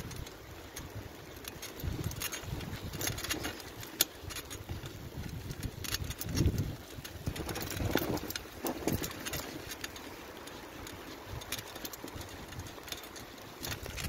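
A bicycle ridden through fresh snow: the tyres crunching through it, with irregular clicks and rattles from the bike and occasional low rumbles.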